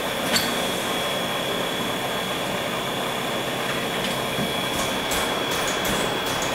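JNR Class D51 steam locomotive D51 498 hissing steadily with steam, with a faint high steady tone over it. From about five seconds in comes a run of short, sharp hisses.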